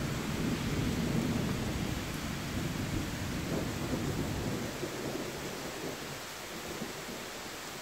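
Heavy rain falling steadily, with a deep rumble underneath that dies away over the first five seconds or so.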